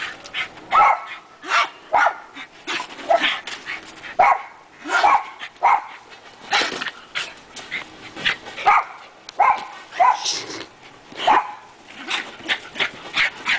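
Small dog barking repeatedly in play, about one to two barks a second.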